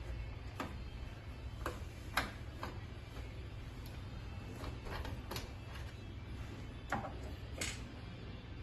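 Irregular light clicks and knocks from parts and tools being handled while a weighing filling machine is taken apart, the sharpest about two seconds in, over a low steady hum.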